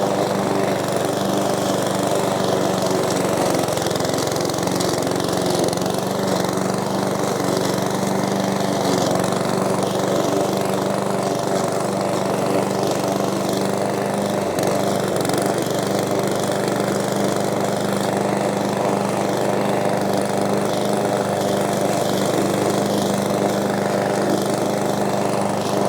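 PowerSmart 170cc self-propelled lawn mower's four-stroke single-cylinder engine running at a steady speed.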